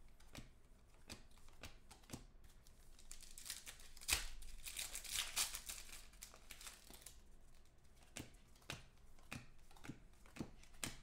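Foil trading-card pack wrappers crinkling and tearing as packs are ripped open by hand, with light clicks and ticks between. The loudest crinkling starts about four seconds in and lasts a couple of seconds.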